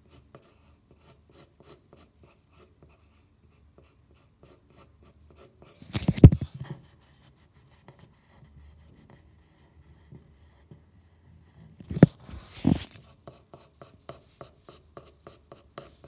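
Graphite pencil scratching on paper in many short, quick strokes as a drawing is shaded in. Two louder rubbing thumps come about six and twelve seconds in.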